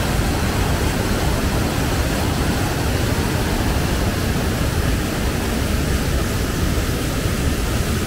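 Waterfall heard close up: a loud, steady rush of white water pouring over rock ledges.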